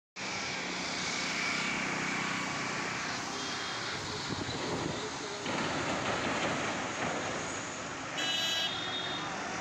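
Steady roadside traffic noise, with a vehicle horn tooting once briefly near the end.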